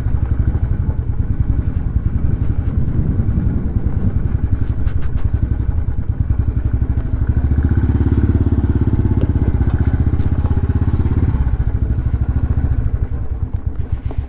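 Motorcycle engine running with a steady, rapid pulsing exhaust note. It grows a little louder about eight seconds in and eases off near the end.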